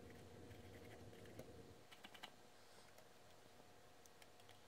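Near silence: room tone with a faint hum and a few faint small clicks, about two seconds in and again near the end.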